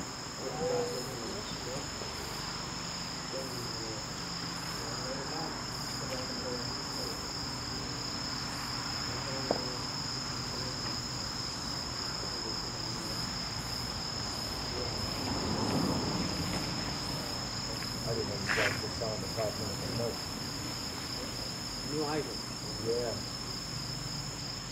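A steady, high-pitched insect chorus drones throughout, over a soft, even hiss from the burning smoke bomb as it spews smoke.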